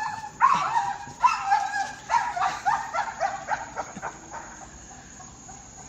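Dog whining in a run of short, high-pitched cries about twice a second, growing fainter and dying away after about four seconds.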